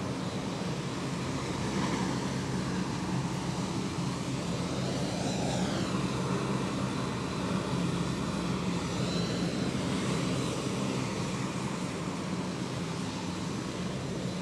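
Lockheed C-130 Hercules turboprop engines running steadily on the ground, a deep propeller drone under a turbine whine that rises and falls twice.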